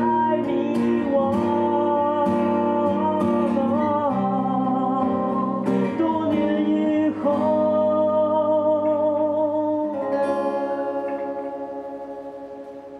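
A male singer's live vocal over a strummed acoustic guitar. About ten seconds in, the singing ends and a held chord rings out, fading away.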